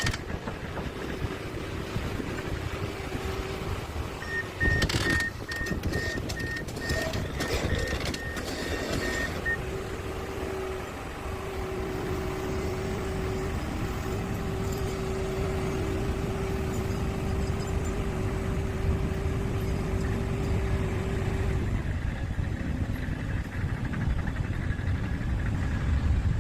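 A heavy hydraulic excavator's diesel engine runs with a steady low rumble. From about four seconds in, a travel alarm beeps about twice a second for some five seconds. Then a steady hum holds for about twelve seconds, with a couple of short breaks.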